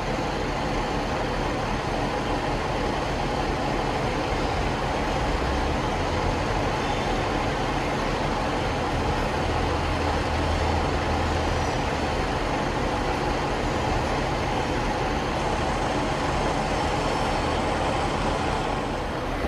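Diesel train running at a station, a steady engine hum and rumble that swells slightly partway through.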